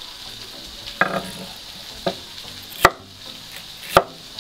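Cleaver-style kitchen knife chopping sweet pepper on a wooden cutting board: four sharp knocks about a second apart. Under them, a steady sizzle of vegetables frying in oil in a pan.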